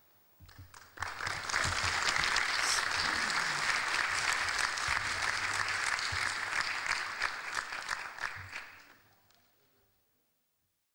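Audience applauding, building up within the first second and dying away about nine seconds in.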